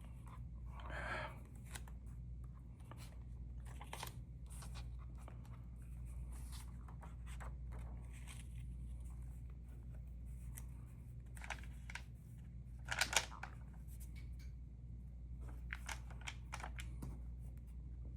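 Paper stamp sheets and envelopes being handled: scattered light rustles, crinkles and small ticks, with a louder rustle about thirteen seconds in, over a steady low hum.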